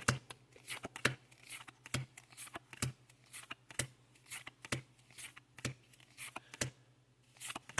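Pokémon trading cards being flipped through one at a time, each card sliding off the stack with a short papery click, about two a second.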